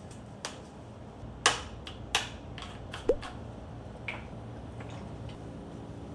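Several sharp clicks and pops, one about three seconds in carrying a short rising bloop, then a few fainter ticks.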